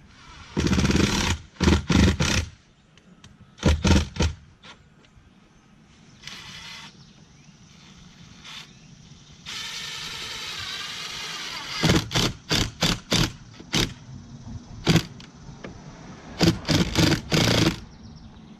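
Power drill driving screws through a shutter cap into the shutter: short trigger bursts near the start, a steady two-second run in the middle, then a quick series of short pulses as the screws are snugged up.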